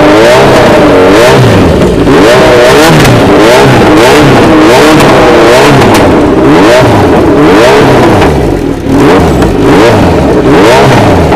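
Kawasaki Z900 inline-four engine revved through an SC Project twin-outlet slip-on silencer: very loud, blipped up and dropped back over and over, about once a second, with a brief ease-off near the end.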